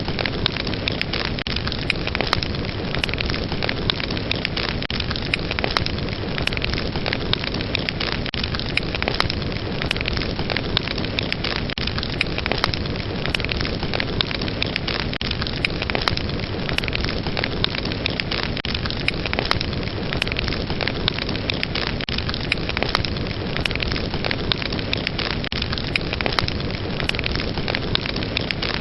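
Wood fire burning in a fireplace, a steady hiss of flames with dense, continual small crackles and pops.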